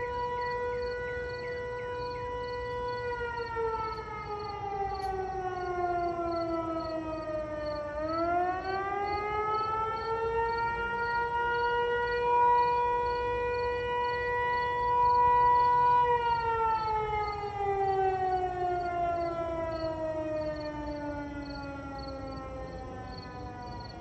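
Electromechanical fire sirens sounding an emergency call alert, the Federal Signal Eclipse 8 and Model 2. The wail holds steady, winds down in pitch, winds back up sharply about eight seconds in and holds at its loudest, then winds slowly down again near the end.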